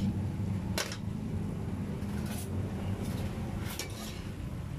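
Metal spoon scraping and clinking against an aluminium wok while stirring chicken gizzards in simmering liquid, a few short scrapes spread through, over a steady low hum.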